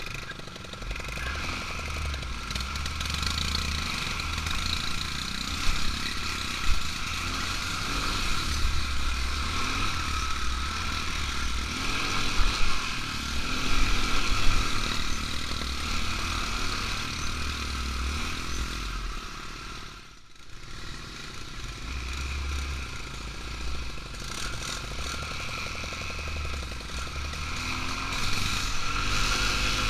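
ATV engine running steadily while riding, with a few sharp knocks in the first half. The engine sound drops away briefly about twenty seconds in, then picks up again.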